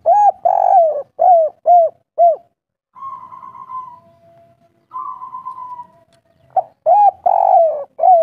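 Spotted dove cooing: two phrases, the second starting about two-thirds of the way in. Each is a few short coos, one drawn-out coo and then three short 'kuk' notes, the 'kuk 3' song type. Softer rolling notes fill the gap between the phrases.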